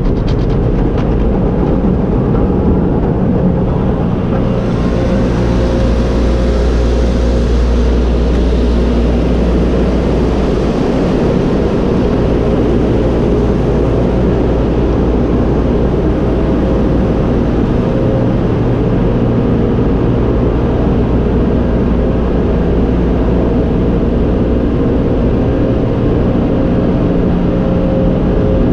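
Automatic tunnel car wash heard from inside the car: a loud, steady mix of water spray hitting the body and glass over the rumble and whine of the tunnel's equipment. A brighter hiss of spray comes in about four seconds in and eases after about fourteen.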